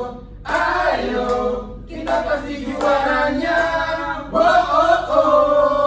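A small mixed group of men and a woman singing a team chant together, unaccompanied, in about three long held phrases with short breaths between.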